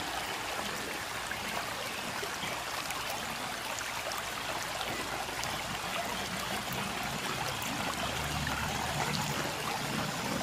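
Steady rush of fast-flowing floodwater. A low engine hum joins in about eight seconds in.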